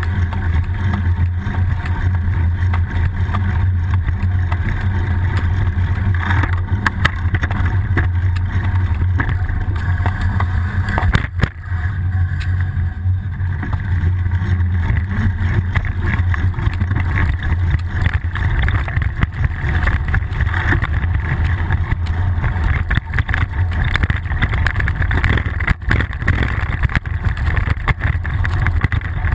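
Riding noise from a bicycle rolling along a paved road, picked up by a GoPro mounted on the bike: a loud, steady low rumble of wind buffeting and road vibration, with a sharp knock about eleven seconds in.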